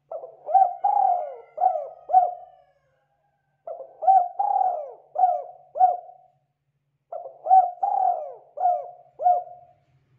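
Spotted dove cooing: three phrases of about five quick coos each, with short pauses between the phrases.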